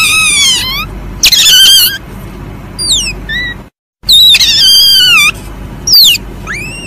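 Asian palm civet (musang) giving a series of shrill, high-pitched calls, each under a second, sliding down in pitch and some hooking up again at the end.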